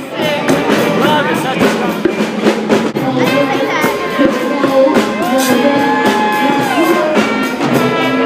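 A live ensemble jam: a drum kit keeps a steady beat under melodic instruments, with a long held note in the middle.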